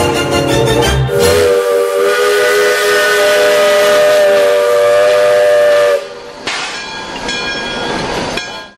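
Steam locomotive whistle blowing one long, steady chord of several notes from about a second in until about six seconds. Quieter train sounds follow and cut off abruptly near the end.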